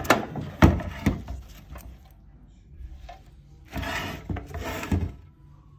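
Handling noises: a few sharp knocks in the first second, then rubbing and scraping with a couple of thumps near the end.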